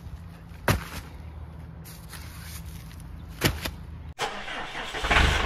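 Two heavy thuds, about three seconds apart, as 80-pound bags of concrete are dropped onto a wooden pallet, over the steady low hum of an idling compact tractor engine. The sound cuts off abruptly about four seconds in, and a different, louder sound begins just before the end.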